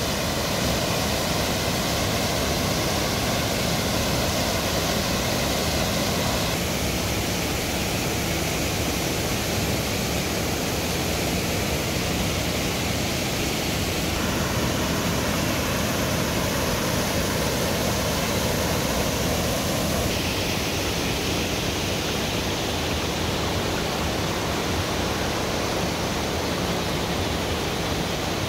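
Steady rush of water from a waterfall and a rocky creek: a continuous, even hiss of falling and tumbling water whose tone shifts slightly a few times.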